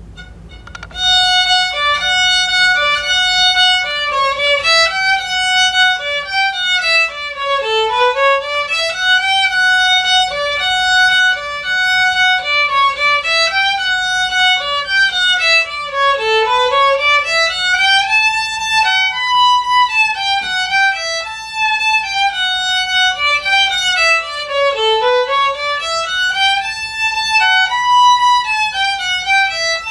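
Solo fiddle playing a brisk dance tune: a single melody line of quick, even notes, starting about a second in, with the same phrase returning over and over.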